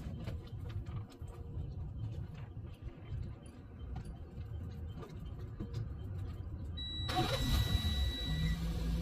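Low rumble of a motor vehicle engine. About seven seconds in it grows louder, and a steady high whine sounds for about a second and a half.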